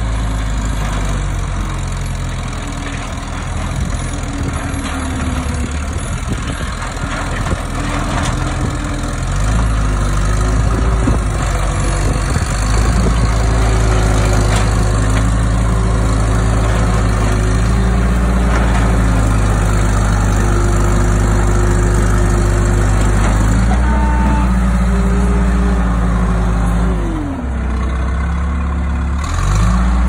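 Case 445CT compact track loader's diesel engine running under load as it pushes gravel and raises its bucket. It gets louder about ten seconds in, and near the end the engine speed drops and then picks up again.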